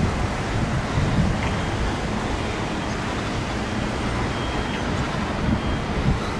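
Vehicle engine running steadily as a low rumble, with wind noise on the microphone.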